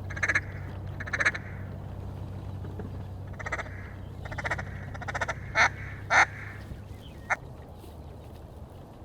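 Mallard-style quacking: about eight short, sharp quacks in loose groups over the first seven seconds, over a steady low hum.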